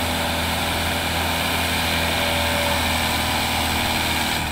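Kubota M108S tractor's diesel engine running at a steady speed, a constant low hum with a broad hiss over it and no revving.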